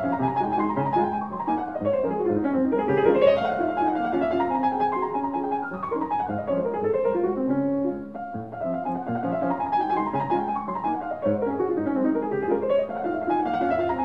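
Background piano music, with three runs of notes that sweep down and then back up.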